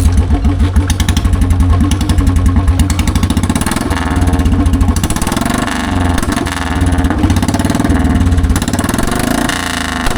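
Royal Enfield Bullet's single-cylinder engine running loud through a bare C-bend exhaust pipe with no silencer fitted, a fast low exhaust beat. It is revved up and down several times in the second half.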